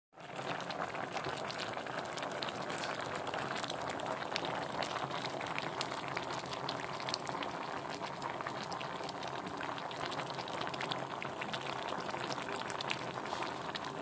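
Dinengdeng broth with moringa pods and grilled fish bubbling at a simmer in a stainless steel pot, a steady run of small pops and crackles.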